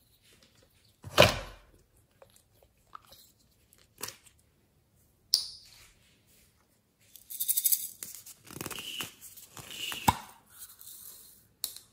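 Hands handling small plastic containers close to the microphone: a sharp knock about a second in, scattered light clicks, a spell of crackly rustling past the middle, and a snug plastic lid being worked off a small tub near the end.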